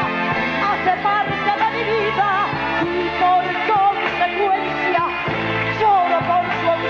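A woman singing a ballad with vibrato over a live orchestra.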